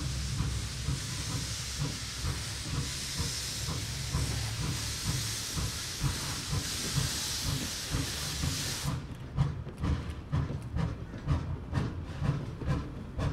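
4-4-0 steam locomotive, a replica of a Civil War-era engine, pulling its train away: a steady hiss of steam from the open cylinder cocks over its exhaust chuffs. About nine seconds in the hiss cuts off as the cocks close, and the sharp exhaust beats, about two to three a second, stand out.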